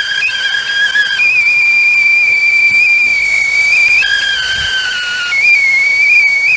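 Stovetop tea kettle whistling loudly at the boil. The whistle jumps back and forth between two notes: a lower tone at first, a higher note from about a second in, the lower tone again near the middle, then back to the higher note.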